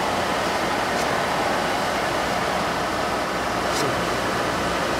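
Steady street hubbub of indistinct voices and background traffic noise, with a faint click about four seconds in.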